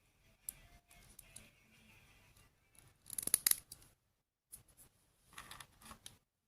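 Small toy pieces and their packaging being handled: scattered light clicks, with a louder burst of crinkly rustling about three seconds in and another near the end, after which the sound cuts out.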